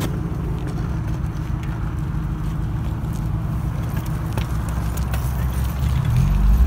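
Steady low rumble of street traffic and wind noise while moving along a sidewalk, growing louder near the end.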